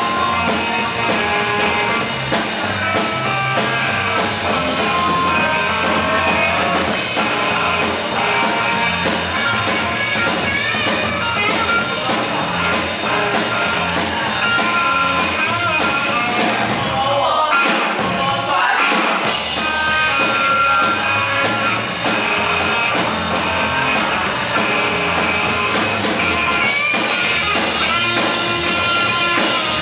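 Live rock band playing electric guitars, electric bass and drum kit, with a lead vocal. The low end drops out briefly about 17 seconds in, then the full band comes back.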